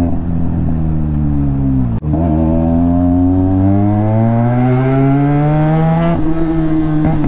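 Benelli TNT 300's parallel-twin engine through an aftermarket exhaust, under way. The revs fall and cut briefly about two seconds in, then climb steadily through an acceleration and level off near the end.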